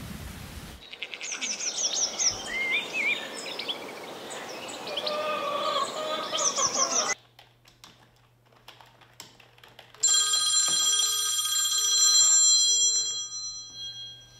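Birds chirping and calling for about six seconds, cutting off abruptly to a quiet hum. About ten seconds in, a mobile phone ringtone rings for about three and a half seconds.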